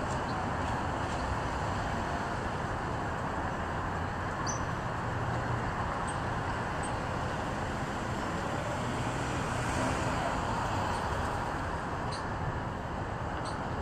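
Steady rush of street traffic noise, even and unbroken, with a few faint ticks.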